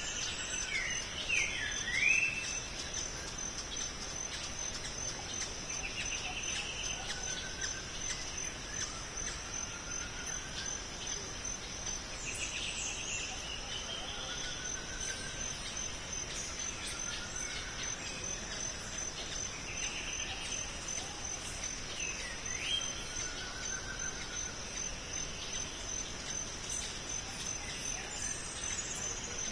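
Tropical forest ambience: a steady, high-pitched, rapidly pulsing insect drone under scattered calls of several birds, with short whistled slurs, a few sharp down-and-up notes and brief trilled calls.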